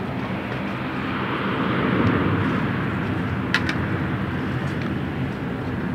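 Dash 8-400 turboprop engines and propellers running with a steady low hum, swelling about two seconds in, as the airliner rolls along the runway after landing. A couple of sharp clicks come about three and a half seconds in.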